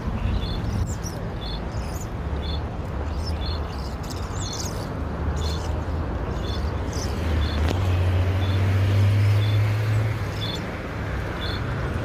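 Steady low rumble of city traffic, swelling as a vehicle passes from about two-thirds of the way in. Over it come scattered short bird chirps and a faint high tick repeating evenly about twice a second.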